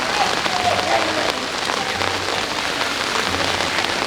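Heavy rain falling steadily, a dense even patter with no letup.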